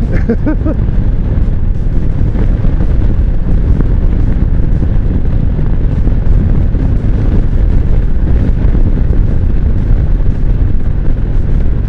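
Loud, steady wind buffeting on the microphone of a Kawasaki Vulcan cruiser motorcycle moving at road speed, with the engine running underneath.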